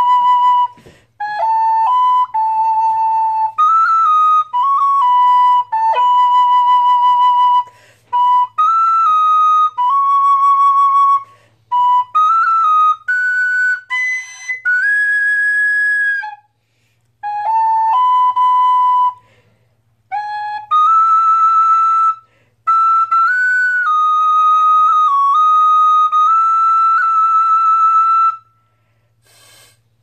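Metal-bodied Irish tin whistle in high B (Anak Whistle) playing a melody in short phrases of clear, held notes, with brief pauses between phrases and quick ornaments on some notes. The playing stops a little before the end.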